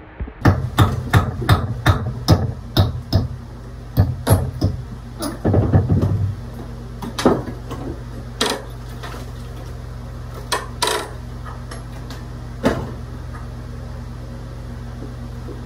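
Hand demolition of old wood: sharp hammer strikes and knocks, about two a second for the first few seconds, then scattered single blows, over a steady low hum.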